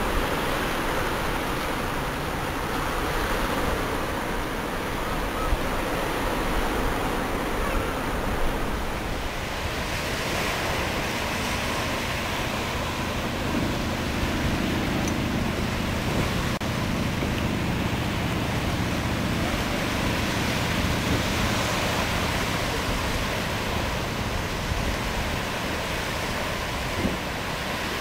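Steady wash of small surf waves along a beach, with wind rumbling on the microphone.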